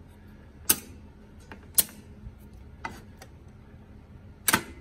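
Relays of a 1948 Bally Carnival electromechanical pinball machine clicking as they are worked and reset by hand: four sharp metallic clicks about a second apart, the third weaker and the last a quick double near the end.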